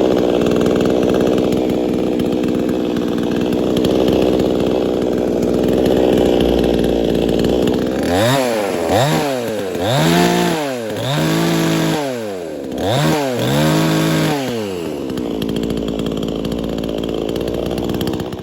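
Two-stroke Autojare budget chainsaw running on its first run after starting, idling steadily for about eight seconds. It is then revved up and down several times in quick succession, and settles back to idle near the end.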